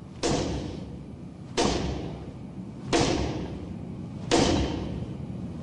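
Four sharp thuds at an even pace, about one every 1.4 seconds, each trailing off.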